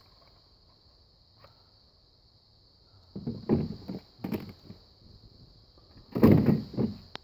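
Two clusters of dull knocks and clunks, as of gear being handled and set down: a few about three seconds in, and a louder group near the end, over a constant faint high hiss.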